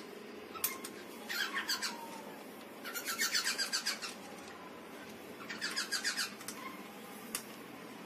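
Alexandrine parakeet working a metal nut on a bolt with its beak, making three short runs of rapid clicking, about nine clicks a second, the longest lasting about a second, with a couple of single sharp clicks between them.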